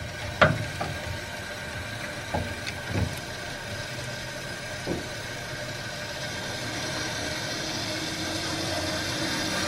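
Fresh water rushing out of the flush hose on a Rinnai tankless water heater, a steady rush that grows slightly louder toward the end, as the descaling solution is flushed out of the heat exchanger. A few light knocks come in the first few seconds.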